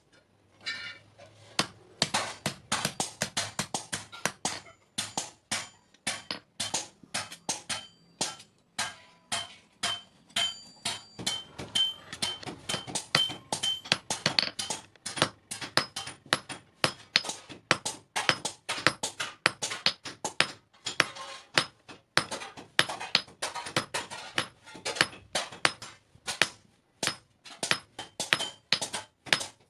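Hammer blows on metal in runs of quick strikes, about three or four a second, with short pauses between runs, as in hand-forging a knife blade. Some blows leave the metal ringing with a high note, most clearly about a third of the way in.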